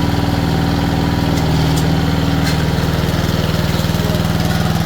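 Snapper model 2872 riding lawnmower's engine running steadily with a fast even pulse, throttle opened a little, blade not engaged.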